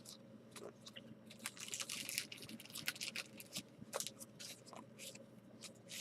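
Faint rustling and clicking of baseball cards and their packaging being handled, with a longer crinkling rustle about a second and a half in.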